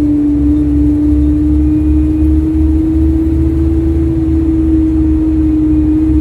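Bus engine and drivetrain running on board while the bus is driven, a steady whine over a pulsing low rumble. The bus's exhaust manifold has failed, which gives it a ticking noise.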